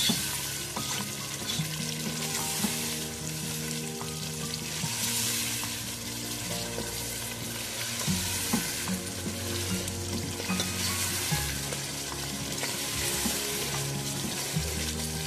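Chicken pieces in a cream and yogurt gravy sizzling in a karahi as a wooden spoon stirs them, scraping along the pan. The fresh cream has just gone in and is cooking only briefly.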